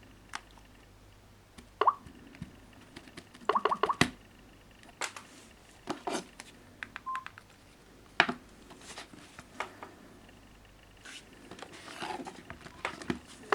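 Scattered taps and clicks from handling smartphones, some with short electronic beeps, like touchscreen key tones.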